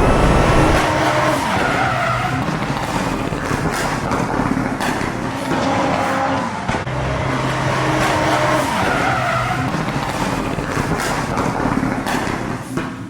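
Drift cars sliding with tyres skidding and engines running hard, the noise dropping away sharply near the end.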